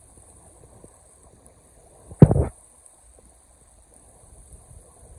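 Faint steady rush of river water, broken about two seconds in by a short, loud thump lasting about a quarter of a second.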